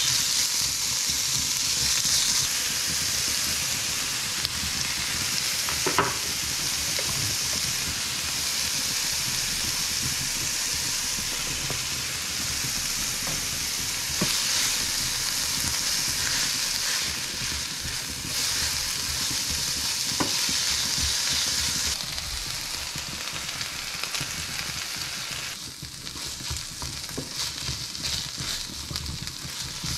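Minced meat and diced vegetables sizzling in a nonstick frying pan while a spatula stirs and breaks up the meat, scraping across the pan. The sizzle eases and grows quieter in the last third.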